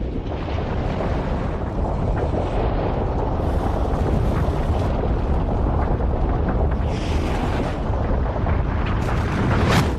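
Wood fire burning hard in a long-burning stove's firebox during its first paint-curing burn: a loud, steady rushing roar with scattered crackles.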